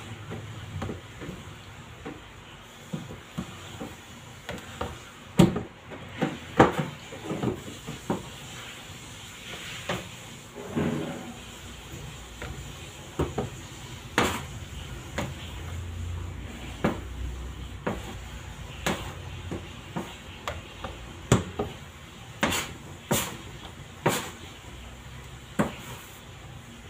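Irregular knocks and thuds as pieces of pizza dough are handled and set down on a plastic digital kitchen scale and a stainless steel worktable.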